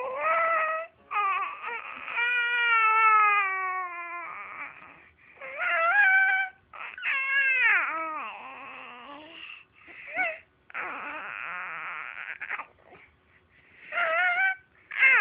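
A baby crying in a string of long, high wails, several of them sliding down in pitch, with short breaks between them.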